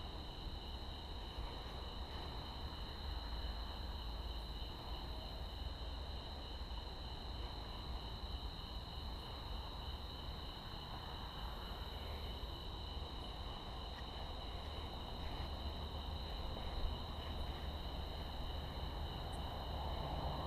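Crickets trilling steadily through the night: a constant chorus held on two high pitches without a break, over a low steady rumble.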